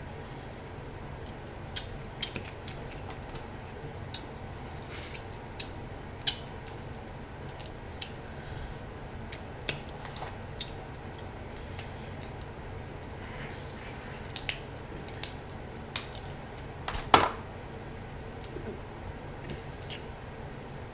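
Snow crab shells being cracked and snapped apart by hand: irregular sharp cracks and clicks, the loudest about 17 seconds in, over a steady low hum.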